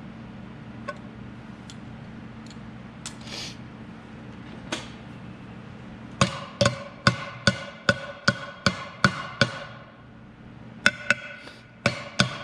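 Hammer blows on a stuck metal lathe part: a quick run of about nine ringing strikes, a short pause, then another cluster of blows. Before that there is a low steady hum with a few light knocks.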